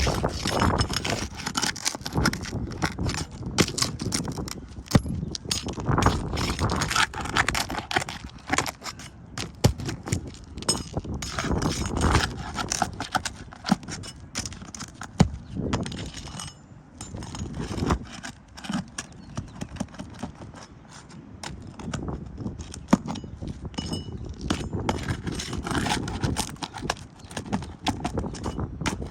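Irregular clicking and scraping as an asphalt roof shingle tab is pried up and worked loose for a repairability test, with sharp knocks of varying strength throughout.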